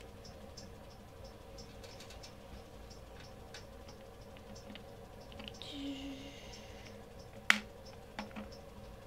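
Light, scattered clicks and taps of small plastic toys being handled and set down on a wooden tabletop, with one sharper click about seven and a half seconds in. A brief faint tone comes just before it, over a steady low hum.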